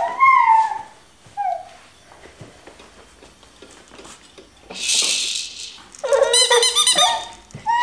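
A baby's short high squeals, then a plastic bead rattle on a baby activity seat shaken briefly about five seconds in, followed by about a second of warbling high-pitched sound.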